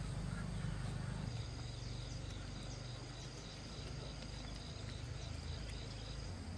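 Pets eating from their bowls, soft chewing early on, over a steady low rumble. An insect chirps in quick even pulses, about three or four a second, through the middle.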